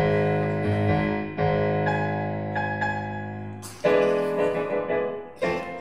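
Solo piano playing a slow run of chords, each struck and left to ring and fade, closing the hymn after the singing has stopped.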